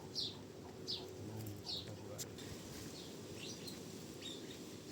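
A small bird chirping repeatedly: short, high chirps that slide downward, about one every half second to second.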